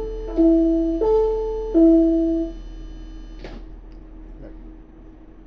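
A train's public-address chime: clean bell-like tones alternating high and low, ding-dong-ding-dong, ending about two and a half seconds in, over a steady low hum. A faint click follows.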